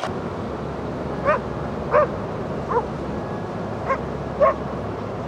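A dog giving five short, high yips spread over a few seconds, over a steady background rush.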